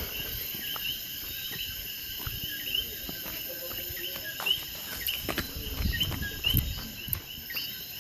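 Night insects chirping steadily: a repeated chirp about twice a second over a constant high-pitched whine. In the second half come a few sharp pops and low thumps.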